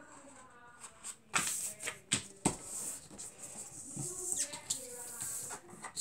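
A sheet of paper being handled and folded in half, with a few short crisp rustles and scrapes between about one and two and a half seconds in. A faint voice murmurs quietly at times.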